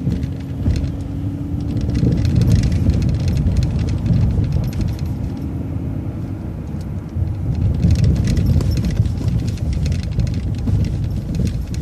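Transit bus driving, heard from inside: a steady low engine and road rumble, with many quick rattles and clinks from loose fittings, most of them about eight to eleven seconds in.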